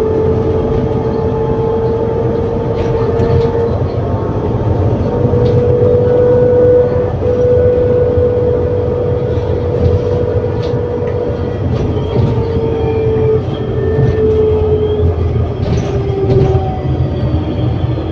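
ADL Enviro400 City double-decker bus with Voith automatic gearbox running under way, heard from inside: a steady low drivetrain rumble with a prominent high whine that holds steady, then falls lower in the last few seconds. Light rattles come through now and then.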